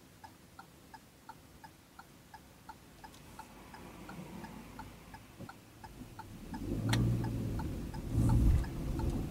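Car turn-signal relay clicking in a steady tick-tock, about three clicks a second, while the car waits at a roundabout entry. About two-thirds of the way through there is a sharp click and the engine and road noise rise as the car pulls away.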